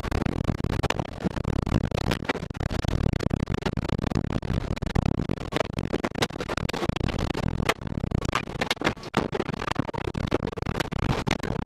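Storm wind buffeting the microphone in a heavy, uneven rumble, with many sharp ticks and knocks scattered through it.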